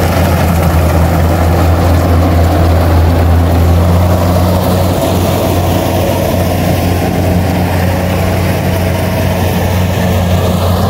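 Rice combine harvester's engine running steadily at working speed as the machine cuts standing rice, a loud, constant low-pitched sound.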